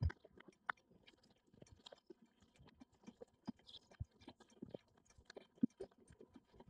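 A sheep chewing and licking at salt: faint, irregular clicks and small crunches.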